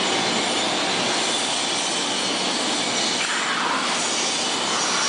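Steady machine noise: a loud, even hiss with no clear rhythm, shifting slightly in tone about three seconds in.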